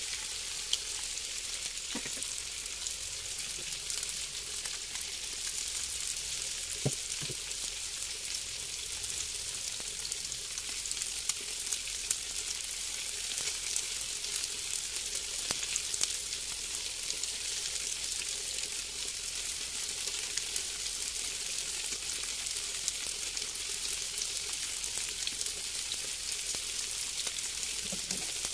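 Food sizzling steadily in oil in a frying pan, with a few light clicks of a utensil against the pan.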